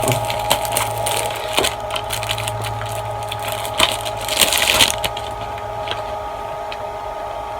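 Plastic disc case being handled and turned over, giving irregular crackling and clicks, with a thicker cluster about four and a half seconds in; a steady low electrical hum runs underneath.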